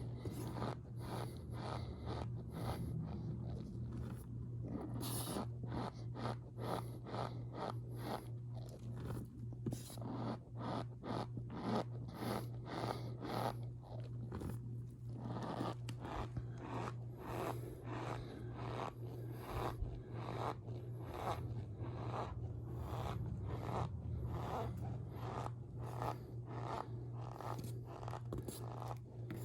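Powder such as cornstarch squeezed and pressed by hand, giving a steady run of soft squeaky crunches and scrapes, about two a second, over a steady low hum.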